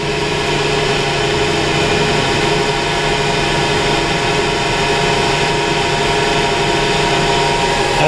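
Steady mechanical hum of running machinery: an even whir with several constant tones that does not change.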